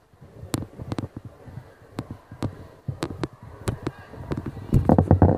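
Irregular sharp clicks and knocks, about one or two a second, from a handheld camera being carried and moved, over the low hubbub of a large hall. A louder, rougher patch of noise comes near the end.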